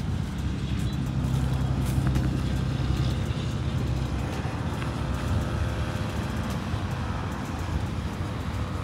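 Small motor scooter's engine running as the rider pulls away across the dirt, with road traffic going by.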